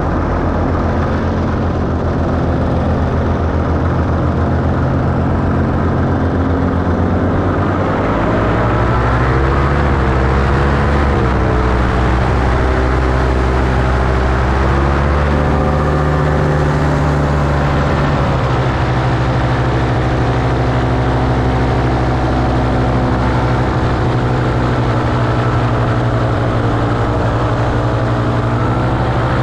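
Paramotor engine and propeller running, the pitch wandering up and down from about eight seconds in to about eighteen seconds in as the throttle is worked, then holding steady.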